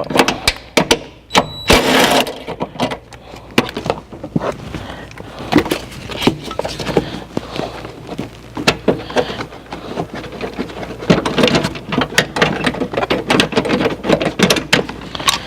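Irregular clicks and knocks of a hand wrench undoing a 10 mm bolt on a seatbelt fitting, with metal tool handling.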